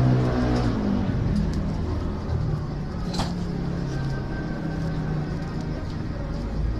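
A motor vehicle's engine running close by, its pitch shifting as it moves, with one sharp click about three seconds in.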